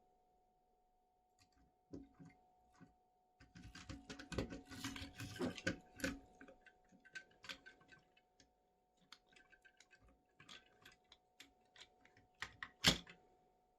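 Small plastic toys and packaging being handled: scattered light clicks, a busier spell of clicking and rustling from about three and a half to six and a half seconds in, and a sharper click near the end.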